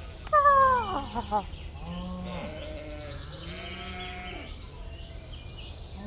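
A bleating animal call, loud and falling in pitch with a wavering end, about half a second in, followed by several softer calls.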